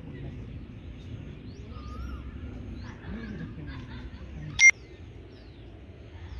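A single sharp, ringing crack of a cricket bat striking the ball about four and a half seconds in, over open-air ambience with small birds chirping.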